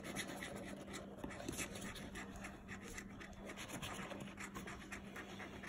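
A coin scratching the scratch-off coating from a paper lottery ticket: faint, quick, irregular rasping strokes. A faint steady hum runs underneath.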